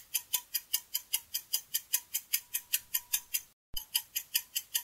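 Fast, even clock ticking, about five ticks a second, laid on as a quiz countdown-timer sound effect. It drops out for a split second about three-quarters of the way through.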